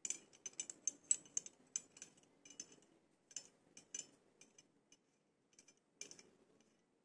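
Black plastic scooter phone holder being worked by hand: quick, irregular light clicks and rattles as its clamp and swivel parts are moved and turned. The clicks come thickest in the first few seconds, then in short clusters.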